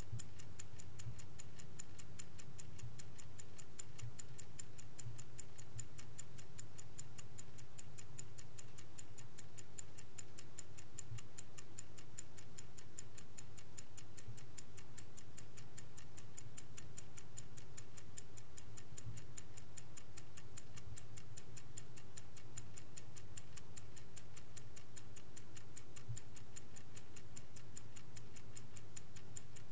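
Vintage Swiss Angelus mechanical clock ticking fast and evenly, with a faint steady low hum underneath.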